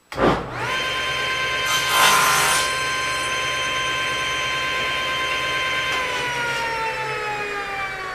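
Table saw switched on, its blade spinning up to speed with a rising whine, then a short crosscut through a small piece of wood about two seconds in. About six seconds in the saw is switched off and the blade winds down with a falling whine.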